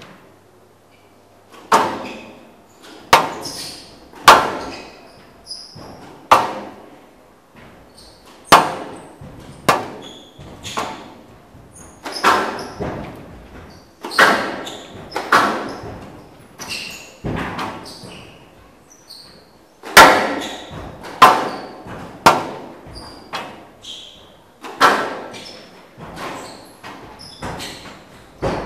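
Squash rally: the ball is struck by rackets and smacks off the court walls in sharp hits about once a second, each with an echoing tail. The hits begin about two seconds in.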